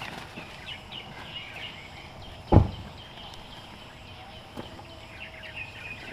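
A single heavy, dull thump about two and a half seconds in, over faint high chirps and a few light knocks.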